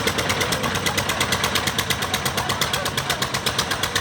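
Concrete mixer machine running steadily, its engine giving a rapid, even clatter of about six beats a second over a low rumble.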